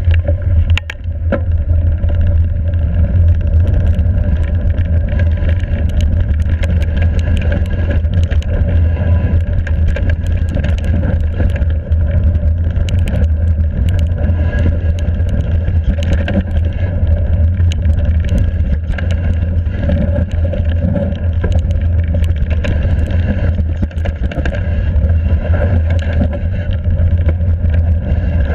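Voodoo Bantu hardtail mountain bike descending a rough trail at speed: heavy wind rumble on the camera microphone, with constant rattling and sharp clacks from the bike's frame, chain and tyres striking the ground.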